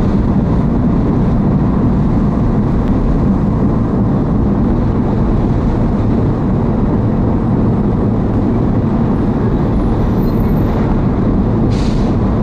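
Steady engine and road noise of a vehicle being driven at an even speed.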